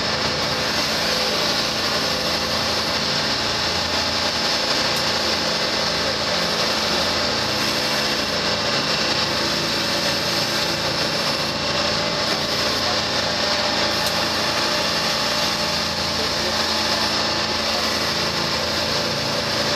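Twin diesel engines of a 44-foot motor lifeboat running steadily under way, heard from inside the wheelhouse: an even, unbroken hum with a steady hiss over it.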